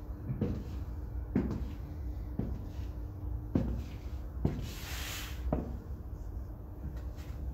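High-heeled sandals clicking on a tiled floor, one step about every second at a slow walking pace, over a steady low hum. A brief hiss comes about five seconds in.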